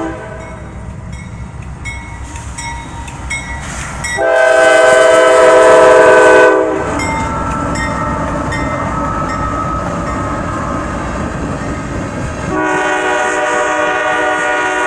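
Diesel locomotive air horn sounding several notes at once in two long blasts, about four seconds in and again near the end, over the engine's low rumble. A crossing bell dings steadily between the blasts.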